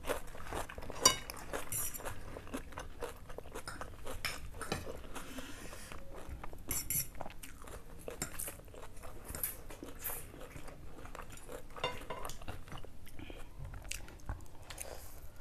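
Close-up eating sounds: chewing, biting and slurping of instant noodles and chicken, with forks clinking on plates. One sharp click about a second in stands out as the loudest sound.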